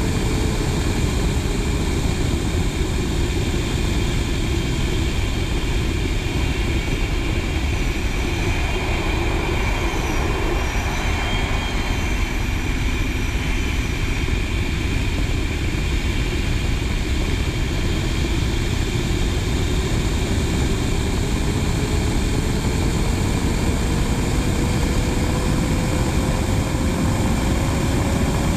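Steady rush of airstream and jet engine noise aboard a Blue Angels F/A-18 Hornet in formation flight, picked up by a camera mounted on the outside of the jet. A faint hum sinks in pitch over the first few seconds and climbs slowly through the second half.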